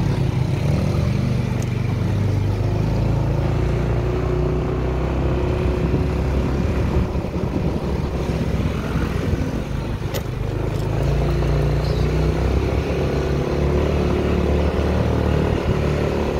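Motor scooter engine running steadily as it is ridden, heard from the rider's seat.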